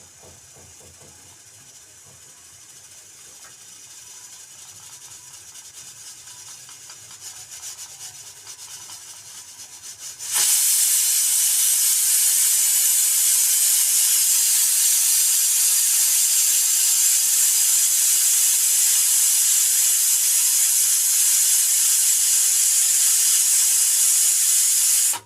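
A hiss that grows slowly from faint for about ten seconds, then jumps suddenly to a loud, steady hiss that cuts off at the end.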